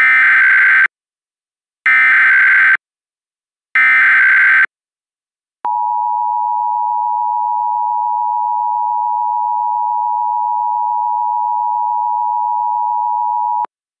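Emergency Alert System tones: three short, identical bursts of SAME header data about two seconds apart, a buzzy stream of rapidly switching digital tones encoding a civil emergency message. About a second and a half later comes the EAS attention signal, a steady two-pitch tone held for about eight seconds, which cuts off suddenly.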